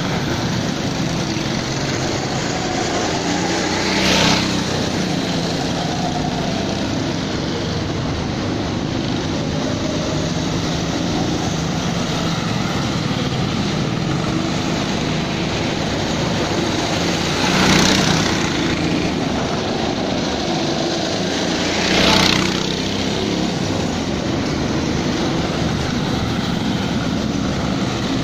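Small go-kart engines running as karts lap the track, a steady buzz that swells briefly louder three times.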